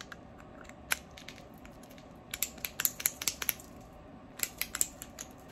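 Small sharp clicks and taps of a canvas locking mitten's strap hardware, its metal eyelets, D-ring and magnetic lock pin, being handled while the strap is fastened: one click about a second in, a quick run of clicks a little past two seconds and a shorter run near the end.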